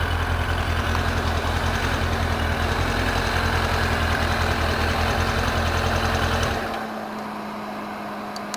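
Motorcycle engine idling with a steady, evenly pulsing low rumble, then switched off about two-thirds of the way through; a fainter steady hum lingers afterwards.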